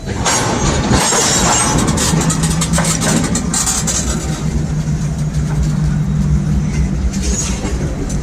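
A motor vehicle running: loud rushing noise that starts suddenly, with a steady low engine hum joining it about two seconds in.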